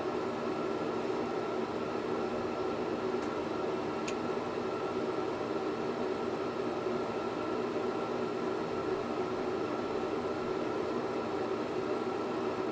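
Steady rushing noise with a low hum, from a glassworking bench torch burning with shop ventilation running, while black stripes are melted onto a clear glass tube. A faint tick about four seconds in.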